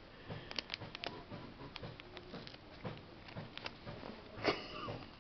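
A baby's mouth smacking and sucking on a piece of chocolate: many small wet clicks. A short, louder sound comes about four and a half seconds in.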